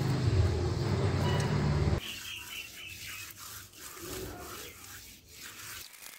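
Wet hands rubbing and smoothing soft mud around the opening of a clay stove, a quiet squishing scrape, with a few small bird chirps about two seconds in. Before that, a louder low droning sound with a steady pitch fills the first two seconds and cuts off suddenly.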